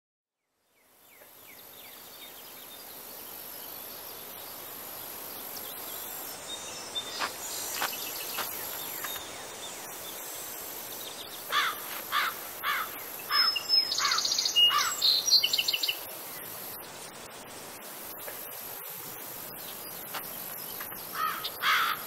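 Outdoor nature ambience fading in: a steady high insect buzz under birdsong. About halfway through a bird repeats a short falling call about twice a second, followed by a brief burst of busier chirping, and the falling calls return near the end.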